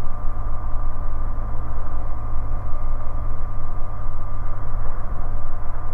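Bristell light aircraft's piston engine and propeller running steadily at low power on the ground, a constant drone with a deep rumble heard inside the cockpit.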